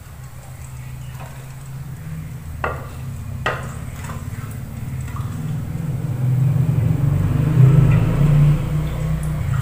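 A metal slotted spoon clinks against a frying pan and plate as fried chicken pieces are lifted out and drained, with two sharp clinks in the first half. Under them runs a low steady hum that grows louder toward the end.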